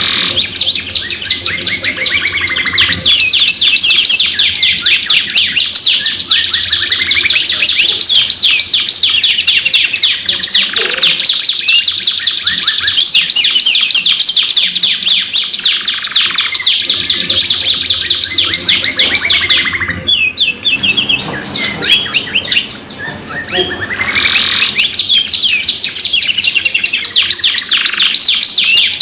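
Two domestic canaries singing long, rapid rolling trills and chattering phrases almost without a break, with a short lull about twenty seconds in.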